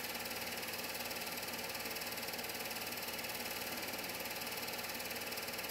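Film projector running, a steady mechanical whir with a fast, even flutter.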